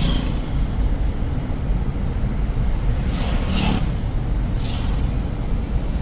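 Rain and road traffic on a wet street: a steady low rumble under an even hiss, with brief swishes about three and a half and five seconds in, like tyres passing on wet road.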